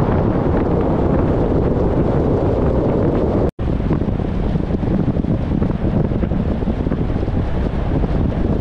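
Strong wind buffeting the microphone: a loud, steady, rumbling rush with no pitch to it. It cuts out completely for a split second about three and a half seconds in, then carries on.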